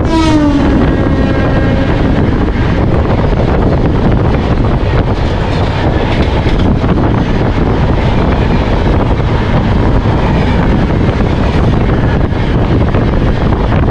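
Passenger train running on the rails: a loud, steady rumble and rush of wheels and wind. Right at the start a train horn sounds and slides down in pitch as it fades over a second or two, as a horn does when it passes by.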